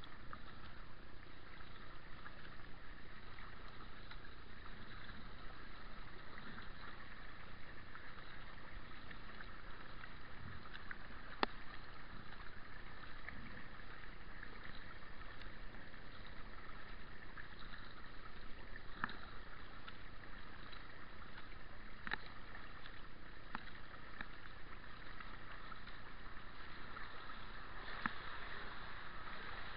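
Kayak being paddled on calm water: a steady splash and trickle of water off the paddle blades, with a few sharp clicks and knocks scattered through.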